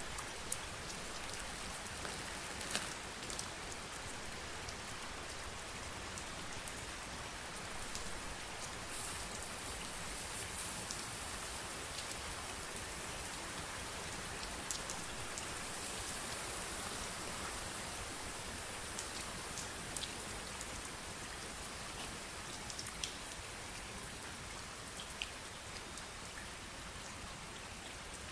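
Crumpled plastic cling film slowly unfolding on its own, giving a steady fine crackle that sounds like rain, with scattered sharper ticks.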